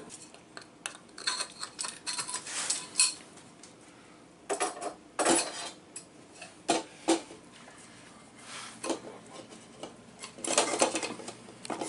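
Clinking and clattering of metal threaded rods and wooden braces knocking against a stainless steel sink, in several short bursts, as the braces are set up to clamp the sink to the countertop.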